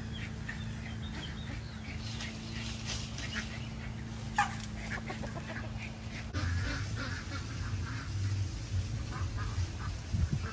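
Free-range chickens calling, short clucks and squawks scattered through, with one loud falling squawk about four seconds in, over a low steady background rumble.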